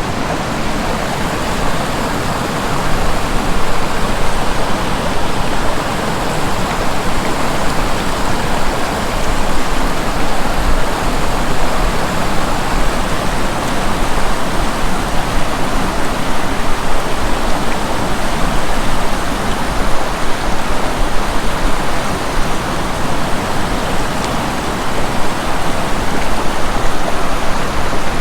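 Loud, steady rushing of a river's flowing water, with no distinct events over it.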